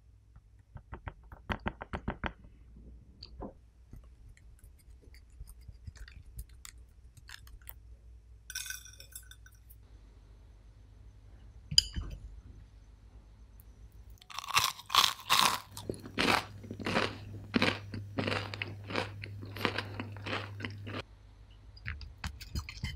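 Crisp panko crust of a deep-fried pork cutlet (tonkatsu) crunching as it is bitten and chewed, a dense run of about a dozen loud crunches in the last third. Earlier, quieter handling: a short run of soft clicks near the start and a couple of light clinks.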